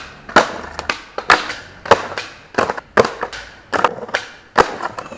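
Skateboard on paving tiles: about seven sharp clacks and knocks of the board, spaced irregularly, each trailing off into a short rumble of wheels rolling over the tiles.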